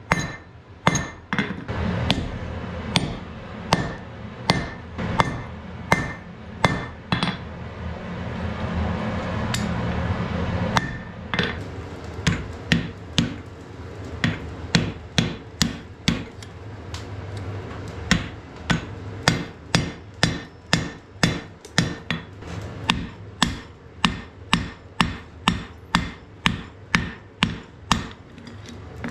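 Hand hammer striking red-hot wrought iron on a steel anvil in a steady rhythm of sharp blows. About a third of the way in the blows stop for a few seconds of steady rushing noise, then resume faster, at about two a second.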